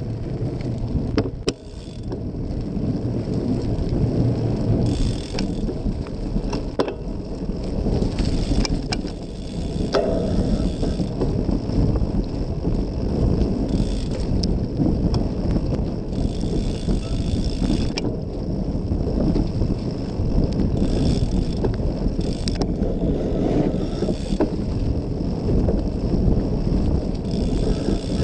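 Cyclocross bike ridden on a road and then a dirt trail, heard through a GoPro mounted on the bike's frame: a steady low rumble of tyres and frame vibration, with wind on the microphone and occasional sharp clicks and rattles from bumps and the drivetrain.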